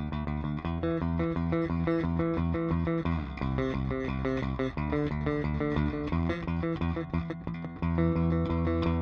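Electric bass, a Fender Jazz Bass, picked through the Boss GT-1B's Mild compressor setting, playing a fast run of notes with an even level. It ends on a held note near the end.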